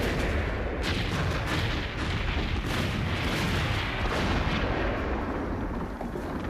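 Film battle sound effects of muzzle-loading cannon fire and explosions: repeated booms over a continuous heavy rumble.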